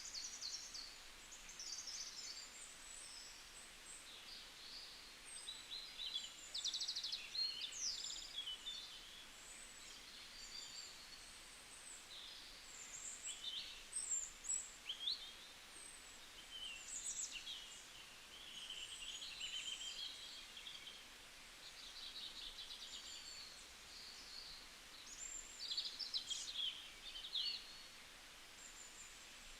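Several songbirds calling and singing over one another: a busy mix of short high chirps, quick trills and whistled glides, over a faint steady hiss.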